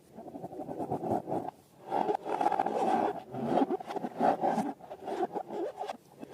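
Rubbery rubbing and squishing of balloons and slime being handled, in irregular bursts with a brief pause partway through.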